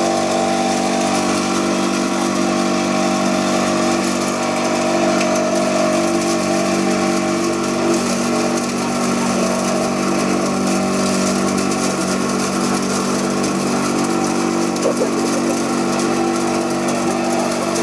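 Homemade leaf chopper-grinder machine running steadily at constant speed, with an even machine hum that does not rise or fall.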